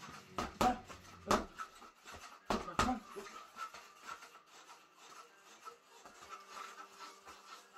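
Boxing gloves punching a spring-mounted reflex bag. There are about five sharp hits in the first three seconds, then only a few lighter knocks.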